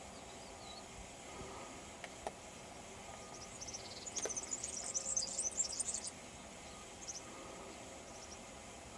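A burst of rapid, high-pitched chirping from a small animal about four seconds in, lasting a couple of seconds, over a faint steady hiss.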